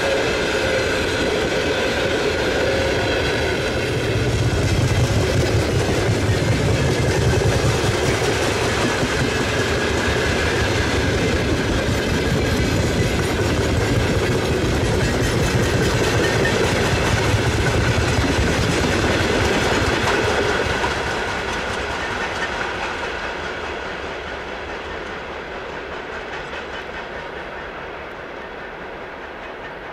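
Loaded coal freight train rolling past on the track, a dense steady rumble of wagons. The sound drops away steadily over the last third as the train moves off.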